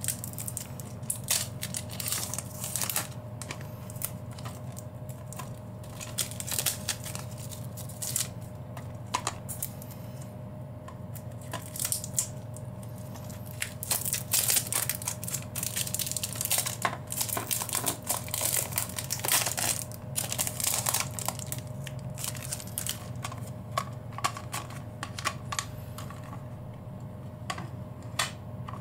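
Cellophane wrapper on a cassette tape case being torn and crinkled off, with irregular crackles and clicks of the plastic case being handled and opened.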